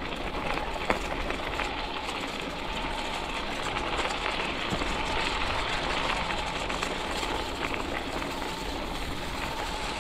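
Electric bike with a 750-watt conversion kit riding over a gravel trail: steady rolling and rattling of the tyres and frame on the gravel, with a faint steady whine from the kit's motor. A sharp knock about a second in.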